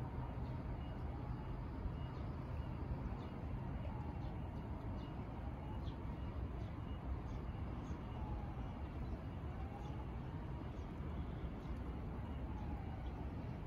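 Waterfront industrial ambience: a steady low rumble, with a faint regularly repeating high beep and a few short faint chirps over it.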